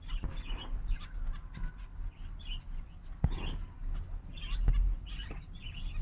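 Zebra finches calling: short nasal beeps scattered through, with a sharp knock about three seconds in and a louder one near five seconds.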